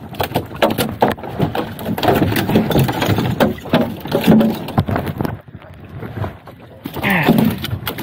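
Knocking and clattering against a small metal boat's hull and the gear in it, as a striped bass is being landed.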